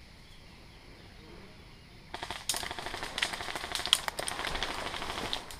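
Dry fallen leaves and twigs crunching and crackling under footsteps, a dense run of irregular crackles that starts about two seconds in and cuts off near the end.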